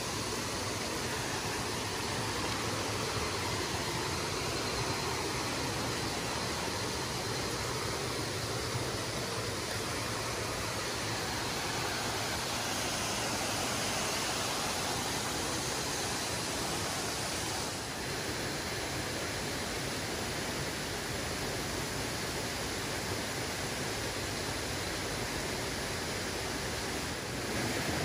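Mountain stream rushing over rocks and a small cascade: a steady, even rush of water.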